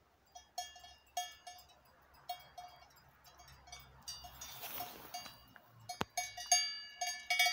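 Bells worn by grazing sheep clanking irregularly, several short metallic rings a second, growing busier toward the end. A brief rush of noise about halfway through and a single sharp click near the end.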